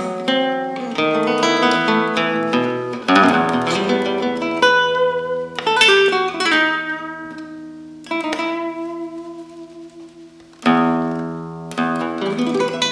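Solo nylon-string classical guitar played fingerstyle: quick runs of plucked notes, then notes left ringing and slowly fading, and a loud chord struck near the end.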